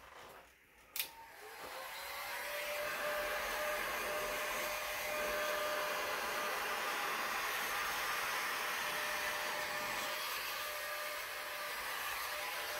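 Handheld electric heat gun switched on with a click about a second in. Its fan spins up over the next second into a steady blowing rush with a faint whine as it blows hot air across wet epoxy resin.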